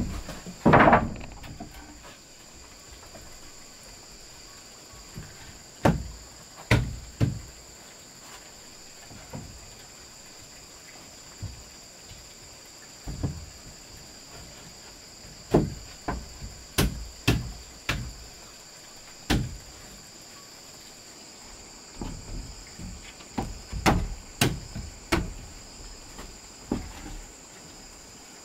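Irregular wooden knocks and clunks, single and in short clusters, as timber is handled and set in place for a wall, over a steady high chorus of crickets.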